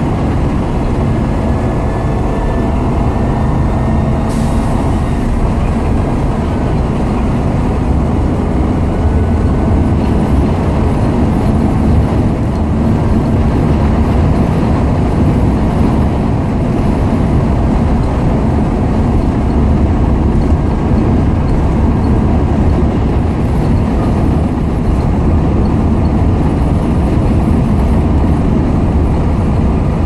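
Cabin sound of a 2017 Blue Bird Vision propane school bus driving at road speed: its propane Ford V10 engine running steadily under loud road and wind noise. There is one sharp click about four seconds in.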